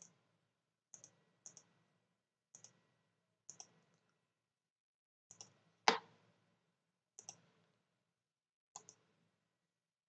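Faint computer mouse button clicks, mostly quick press-and-release pairs, about eight times at irregular intervals, with one louder, sharper click a little past halfway.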